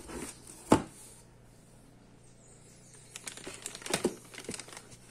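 A single sharp knock under a second in, then a clear plastic bag rustling and crinkling with light clicks over the last two seconds as it is pulled about in a cardboard box.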